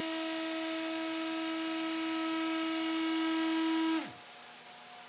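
Festool ETS EC 150 random orbital sander running with a steady whine as it sands a wooden tabletop, over the hum of its dust extractor drawing through the hose. About four seconds in the sander is switched off and its pitch falls away quickly, leaving the dust extractor still running.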